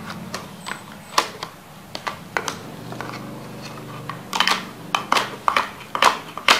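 Plastic toy knife clicking and tapping against a plastic plate and toy fruit as the fruit is cut: a few scattered clicks, then a quicker run of taps near the end.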